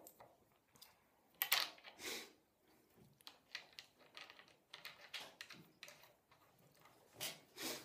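Hands working on a longboard truck: scattered irregular clicks, taps and rustles of the parts being handled, the loudest about a second and a half in and again near the end.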